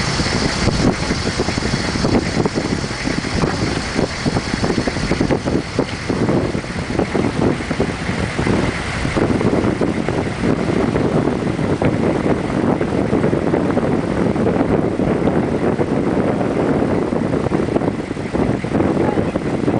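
Modified Nissan Patrol 4x4 on 44-inch tyres running steadily as it wades across a fast glacial river, its engine mixed with the rush of the water around the truck.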